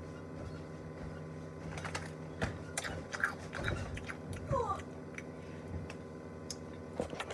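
Scattered soft clicks and taps close to the microphone, a few a second at irregular spacing, over a steady low hum: a child's improvised ASMR sounds.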